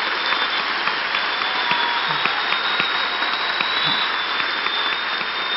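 Audience applauding steadily: dense, sustained clapping from a large crowd.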